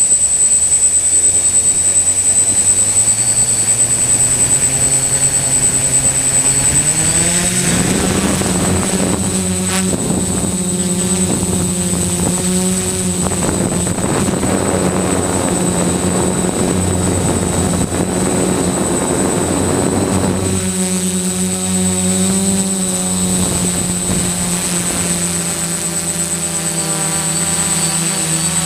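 DJI F450 quadcopter's brushless motors and propellers, heard close from the onboard camera. The motors spin up with slowly rising pitch, then throttle up sharply for takeoff about seven seconds in. They keep a steady multi-rotor whine in flight, with a rushing noise over it through the middle. A thin, steady high-pitched whine runs underneath throughout.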